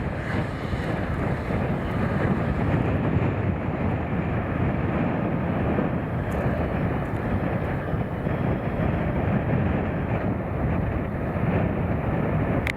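Tractor and baler-wrapper running steadily while baling silage.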